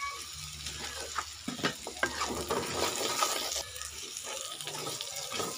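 Sliced carrots sizzling in hot oil and fried spice paste in a wok, stirred with a metal spatula that scrapes and clinks against the pan again and again.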